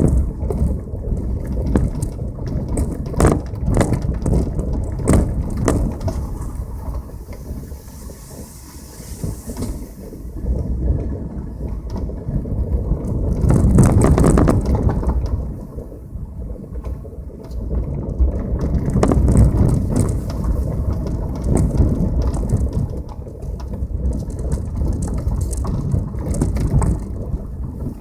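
Passenger car driving over a rough, uneven road: a continuous low rumble of tyres and road with many sharp knocks and crunches, swelling to its loudest about halfway through.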